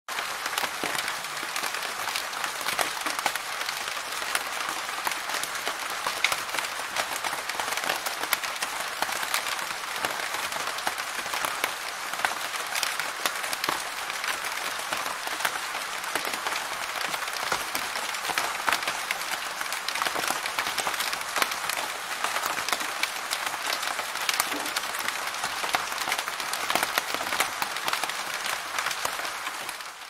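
Steady medium rain: a dense, even patter of many drops, with scattered louder single drop hits standing out.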